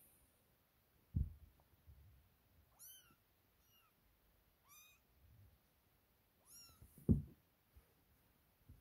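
Young kittens mewing: four short, high-pitched mews, each rising then falling, between about three and seven seconds in. Two dull thumps, about a second in and just after seven seconds, the second the loudest.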